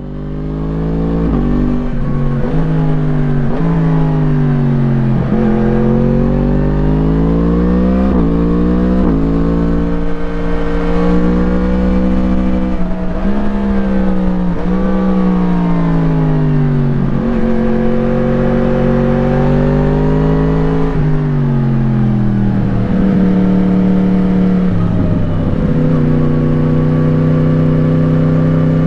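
Yamaha MT-10's crossplane inline-four engine through an Akrapovič slip-on exhaust, heard onboard under way. The revs climb and fall again and again, with sharp drops between climbs as the bike shifts and rolls off the throttle, over low wind rumble.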